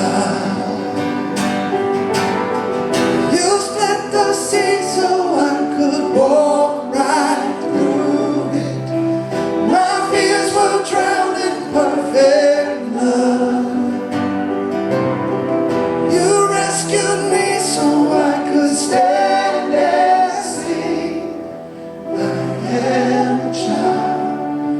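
Gospel worship music: voices singing long, sliding lines over sustained instrumental accompaniment, briefly quieter about 22 seconds in.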